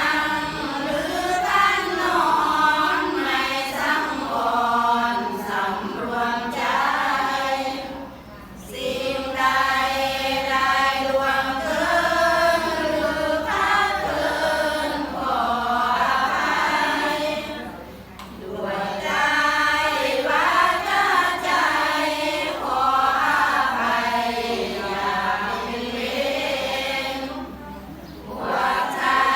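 Buddhist chanting by a group of voices in unison, in long phrases broken by a short breath pause about every ten seconds.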